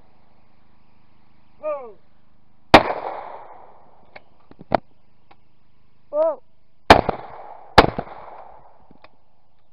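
Shotgun shots at clay targets: a single shot about a third of the way in, then a pair of shots under a second apart near the end, each with a long echoing tail. A short shouted call comes just before the single shot and again before the pair, the shooter's call for the clay, and a few light clicks fall in between.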